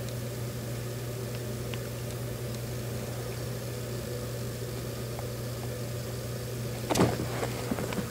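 Steady low mechanical hum, with a brief rustling burst about seven seconds in.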